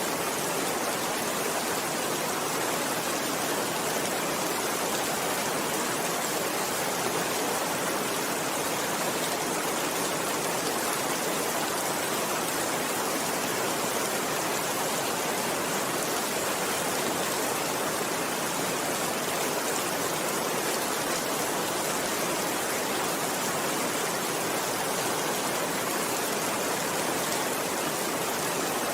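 Steady, even rainfall with no thunder and no change in strength.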